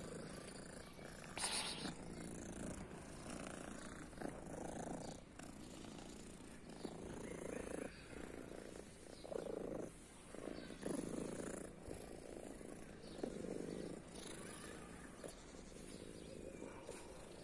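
Domestic tabby cat purring steadily while being stroked, the purr swelling and easing every second or two. A brief scratchy noise about a second and a half in.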